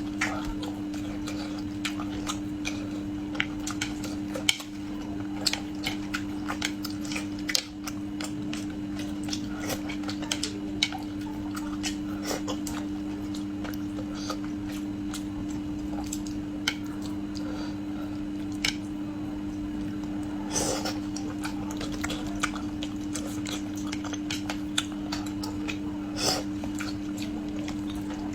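Eating utensils clicking against a dish in many small, irregular taps, over a steady low hum.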